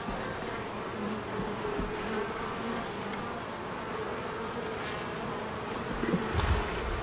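Honey bees buzzing around an opened beehive: a steady, dense drone of many bees in flight, their pitches wavering. A few low bumps near the end.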